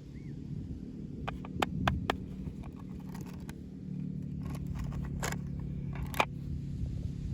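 Sharp clicks and scrapes of toy packaging being handled and opened, a cluster early on and a few more in the second half, over a steady low hum.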